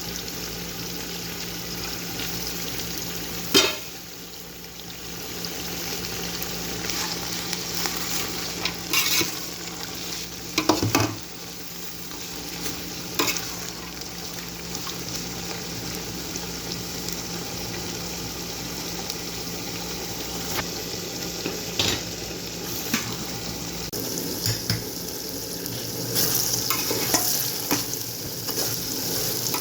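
Food sizzling as it fries in hot oil in a pot, with a steady hiss; a spoon stirring it clanks against the pot now and then.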